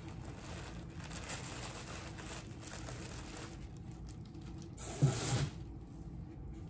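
Crinkling and rustling of white packaging as a sandal is unwrapped by hand, with many small crackles, dying down after about three and a half seconds. About five seconds in, a brief vocal exclamation, the loudest sound.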